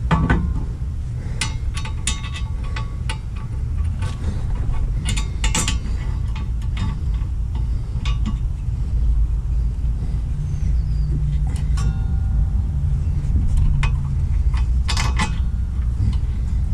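Scattered metal clinks and taps of a wheel hub assembly, its bolts and hand tools being handled while the hub is fitted, over a steady low rumble.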